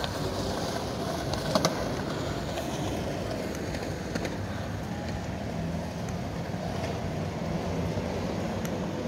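Steady rumble of city street traffic, vehicles running by, with a couple of sharp clicks about a second and a half in.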